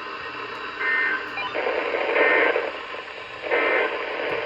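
Emergency Alert System SAME data bursts received over the radio: three short bursts of two-tone digital screech, about one, two and three and a half seconds in, over a steady static hiss.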